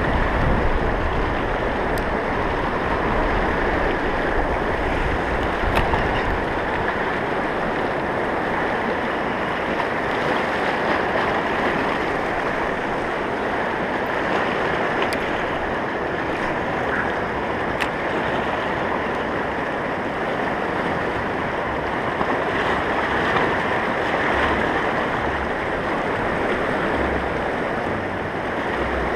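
Fast-flowing mountain river rushing over rocks and rapids: a steady, unbroken roar of moving water.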